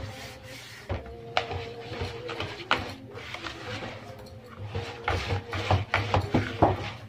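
Wire balloon whisk stirring cake batter in a plastic mixing bowl: irregular knocks and scrapes of the whisk against the bowl, coming quicker and louder in the last couple of seconds.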